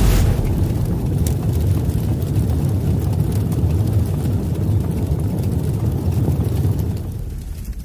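Loud, steady low rumbling noise, fading somewhat near the end.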